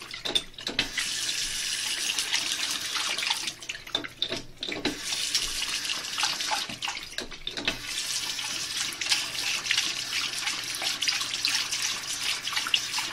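Bathroom sink faucet running, the stream splashing irregularly into the basin as a dog drinks from it. The flow drops off briefly about a third of the way in, then runs again.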